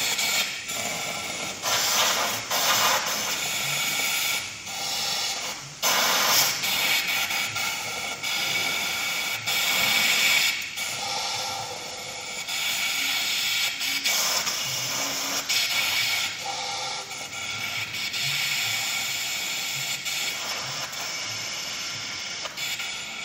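Compressed air from a blow gun hissing into the engine's oil drain hole through a rag, surging and easing in repeated blasts, to blow the last of the old oil out of the crankcase.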